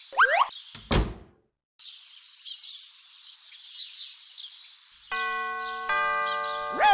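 Doorbell chiming ding-dong: two notes about five and six seconds in, ringing on, with birds twittering in the background. A thump sounds about a second in.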